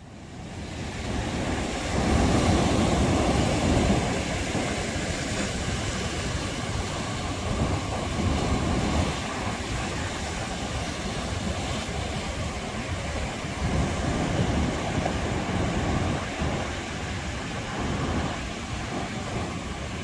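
Ocean surf breaking and washing up the beach: a steady, rumbling wash that fades in over the first two seconds, is loudest soon after, then swells and ebbs with each wave.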